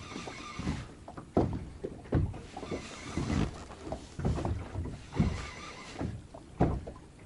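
Small waves slapping against the hull of an inflatable boat: irregular low slaps about once a second, with a wash of splashing water.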